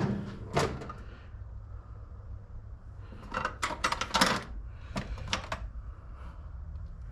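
Light metallic clinks and clicks of small hand tools being handled and picked through: one clink about half a second in, then a quick run of clinks from about three to five and a half seconds in.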